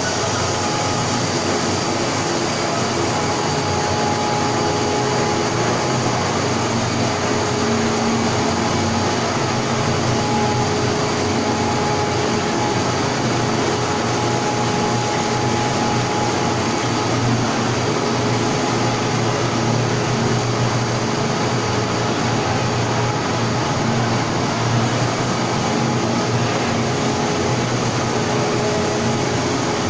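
A running corn-puff ring roasting line, with its rotary drum roaster and conveyors, gives a steady machine noise with a faint hum held underneath.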